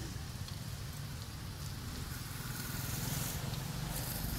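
Motorbike engines running steadily as they go along the road, a low continuous hum with no sudden sounds.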